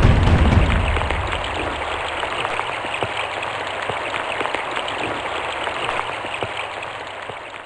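Rain falling: a dense, steady hiss of many small drop ticks. A low rumble under it dies away in the first second or so, and the rain fades out near the end.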